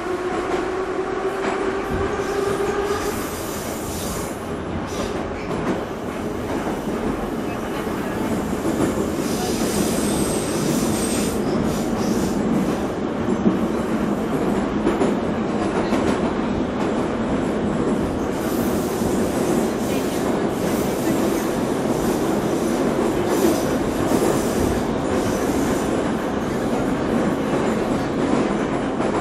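Moscow metro train heard from inside the carriage: the electric traction motors whine upward in pitch as the train gathers speed, fading out after about three seconds. A steady loud rumble and rattle of wheels on rail follows, with several stretches of high-pitched wheel and rail squeal.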